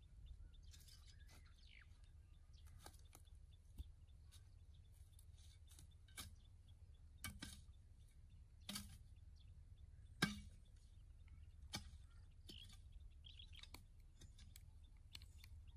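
Near silence: quiet open-air ambience with a steady low rumble, a few faint chirps and about a dozen scattered sharp clicks, the loudest about ten seconds in.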